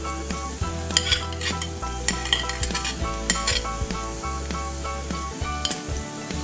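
Metal spoon scraping and clicking against a ceramic plate as chopped vegetables are pushed into a frying pan, with the vegetables sizzling in hot butter and oil. Background music plays underneath.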